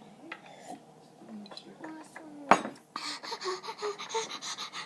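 Dishes and cutlery clinking: one sharp clink about two and a half seconds in, then a quick run of small clinks and scrapes toward the end.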